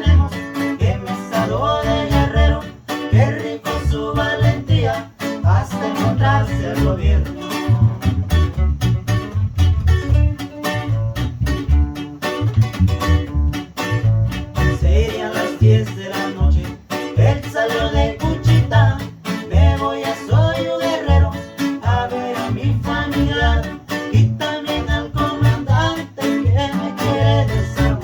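Guitar band playing a song: plucked guitar melody over a steady, pulsing bass line.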